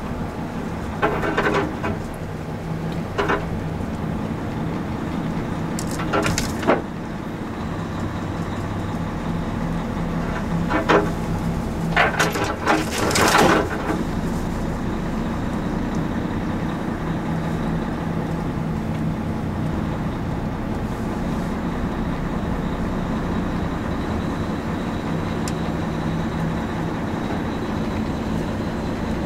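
Hino Profia truck's diesel engine running steadily, heard inside the cab, with several loud bursts of scraping and cracking in the first half as tree branches brush and snap against the truck.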